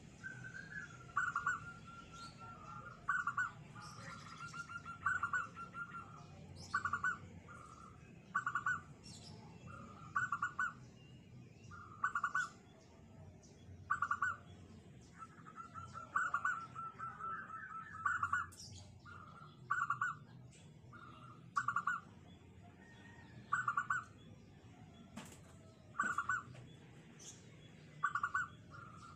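Zebra dove (perkutut) cooing: short, rapid coo phrases repeated about every two seconds, with a longer drawn-out phrase near the start and another around the middle. It is a small, tight voice of the kind perkutut keepers prize.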